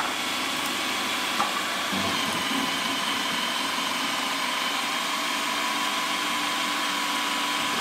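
Electric food processor running steadily with a motor whine as red peppers are pushed down its feed tube and ground. It stops near the end.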